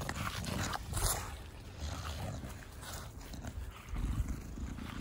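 English bulldog breathing noisily through its short nose, grunting and snuffling in irregular 'fugo-fugo' puffs, with a sharper snort about a second in. This is the loud airway noise typical of a short-nosed (brachycephalic) breed.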